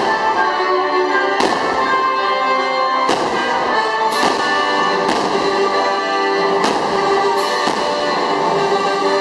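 Orchestral fireworks-show music playing steadily, with fireworks bursting over it: about eight sharp bangs at irregular intervals of roughly one to one and a half seconds.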